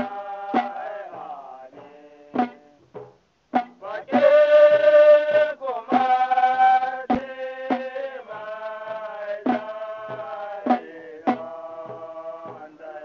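Hausa praise song: a singer holding long, wordless sung notes, with sharp hand-drum strikes at an uneven beat of about one a second.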